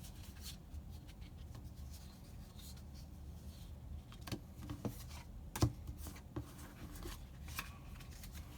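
Magic: The Gathering trading cards being handled and shuffled through by hand: faint sliding and rubbing with a few sharp clicks in the second half, the loudest a little past halfway.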